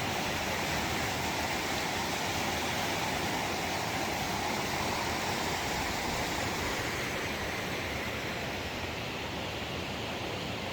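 Steady rushing of a creek's flowing water, easing slightly toward the end.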